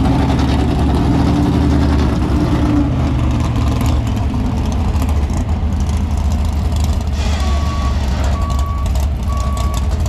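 Heavy engines rumbling at a truck pull, with a higher engine note for the first few seconds that falls away about three seconds in. From about seven and a half seconds in, a backup alarm beeps steadily, a little faster than once a second.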